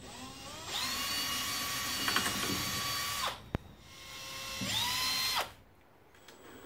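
Cordless drill driving screws into a wooden frame. The motor whines up to speed and runs steadily for about two and a half seconds, stops, then runs again briefly with a rising whine and cuts off sharply.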